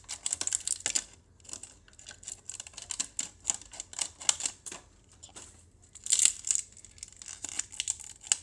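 Stiff clear plastic toy packaging crackling and clicking as fingers work at it to free a small plastic figure stuck inside. The clicks come in irregular bursts, with a louder crinkling flurry about six seconds in.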